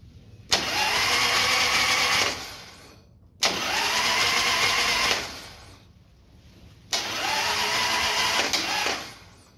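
Harley-Davidson Sportster 883 being cranked on its electric starter in three bursts of just under two seconds each. The engine spins over without catching, which fits the no-spark fault being checked for spark at the plugs.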